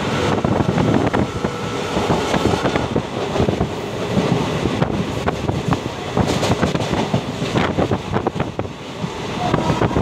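Passenger express train running through a station without stopping, heard from an open window of a coach. Steady rumble of the wheels on the rails, with many irregular clicks and clatter over the track joints, and some wind.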